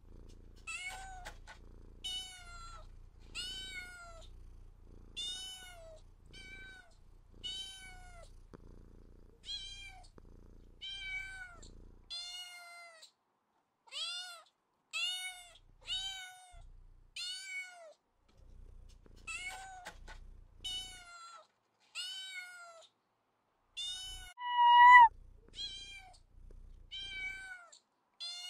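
Domestic cat meowing over and over, short arching meows about one a second. Near the end comes one longer, louder meow.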